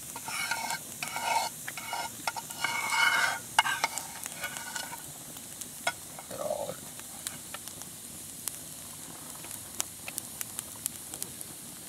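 Spoons scraping and clinking in metal mess tins for the first few seconds, then a wood campfire crackling, with sharp scattered pops over a steady hiss.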